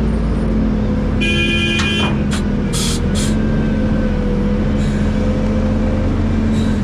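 Heavy diesel earthmoving equipment running steadily, with a brief high whine about a second in and a few short hisses around two to three seconds in.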